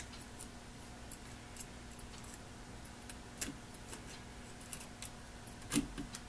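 Faint scattered clicks and scrapes of a hand tool working on a terminal post inside an old electric motor's end housing, as a wire terminal is fastened down. There is one louder knock near the end.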